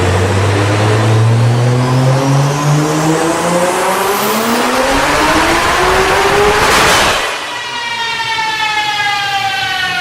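A car engine accelerating hard in one long pull, its pitch climbing steadily as the car approaches. It is loudest as it goes by about seven seconds in, then its pitch and level drop as it drives away.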